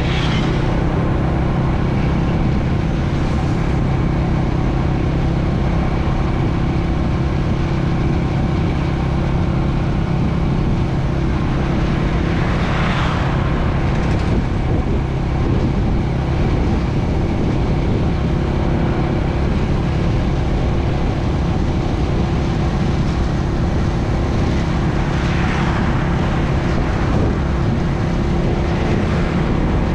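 Motorbike engine running at a steady speed, with road and wind noise. Other traffic passes three times, each pass a brief swell that rises and fades.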